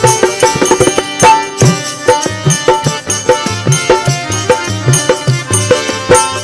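Harmonium playing the melody of a Bundeli folk wedding song over a steady hand-drum rhythm.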